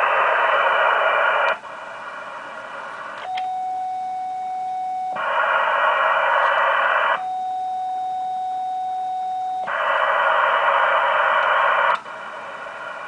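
Static hiss of an HF amateur transceiver's receiver heard through its speaker. It switches abruptly between loud and quieter spells as the bands are changed, and twice gives way to a steady single tone for about two seconds. The hiss comes up loud three times and cuts off suddenly near the end.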